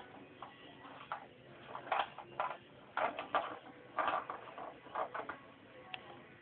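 Irregular short scratching and rustling noises of a kitten at play, several quick bursts a fraction of a second long, with a small click near the end.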